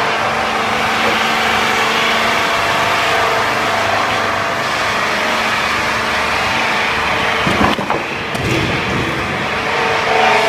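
SB-4V-550 log-squaring machine running steadily under power, with a few sharp knocks and a short change in its sound about three-quarters of the way through.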